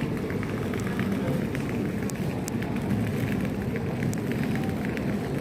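Railway station concourse ambience: a steady low rumble with scattered short clicks and taps.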